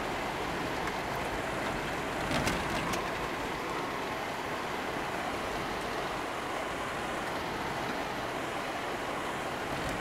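Steady tyre and road noise inside a car's cabin while it drives on an unpaved road, with a couple of brief knocks about two and a half seconds in.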